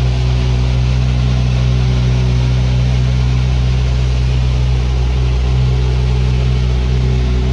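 Ferrari 458 Spyder's 4.5-litre V8 idling steadily through an Innotech Performance valvetronic exhaust, its pitch holding even.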